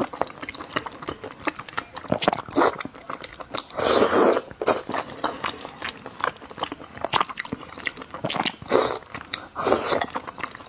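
A person slurping and chewing wide hot-pot starch noodles: a run of short wet mouth clicks, with longer slurps about four seconds in and twice near the end.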